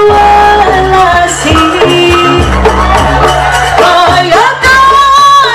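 Live jaranan band music: drums beating under a melody that slides between long held notes.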